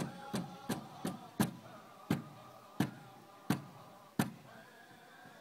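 Powwow drum keeping a quick, even beat of about three strikes a second, then slowing to four single heavy strikes about two-thirds of a second apart before it stops, as the dance song ends. Voices carry faintly behind the beat.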